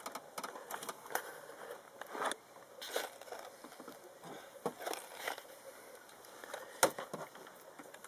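Scattered light clicks and rustles as the plastic heater blower housing and fan wheel are handled, the sharpest click near the end.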